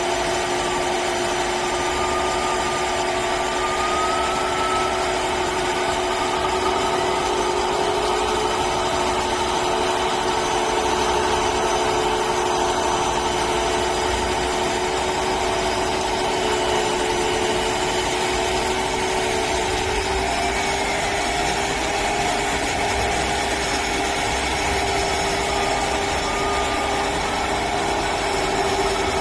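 Simulated truck diesel engine sound from the Servonaut onboard sound module of a 1/14 Tamiya RC tractor truck, played through its small speaker and running steadily as the truck drives slowly.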